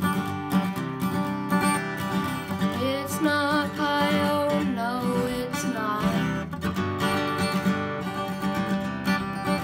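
Acoustic guitar strummed in a steady rhythm of chords, with a young male voice singing a held, wavering line over it in the middle.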